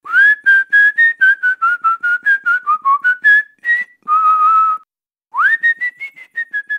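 A person whistling a tune with the lips: a quick run of short notes that dip and then rise in pitch, one longer held note, a brief pause, then a note sliding up into a few more short notes.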